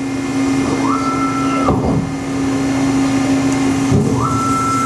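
Hyd-Mech H-14A automatic horizontal bandsaw cycling between cuts, with a steady machine hum throughout. Twice a whine rises, holds for about a second and drops away, with dull knocks, as the vise unclamps, the head lifts and the shuttle indexes the stock forward.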